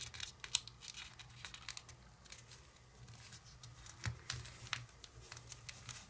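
Faint crinkling and rustling of folded origami paper as it is worked and pushed into a paper pocket, with irregular small crackles, a couple of them sharper about half a second in and around four seconds in.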